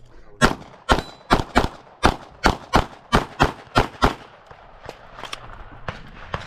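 Rapid 9mm pistol shots from an Open-division Glock during a timed stage, mostly in quick pairs, about a dozen shots, with a gap of about a second and a half after four seconds before the firing picks up again.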